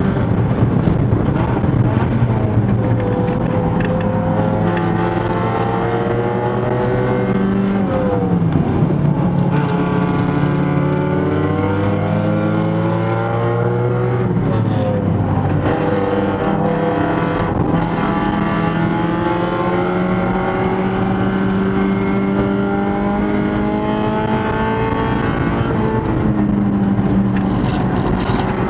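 Spec Miata's Mazda four-cylinder engine at racing speed, heard from inside the stripped cockpit over road and wind noise. The revs climb steadily under acceleration, then drop sharply about 8 and 15 seconds in and again near the end.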